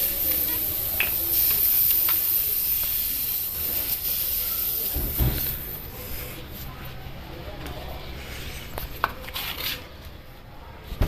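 Air hissing out of a punctured car tyre through the hole left by a bolt, fading away about six seconds in. A few sharp clicks and a knock from the plug-kit tools.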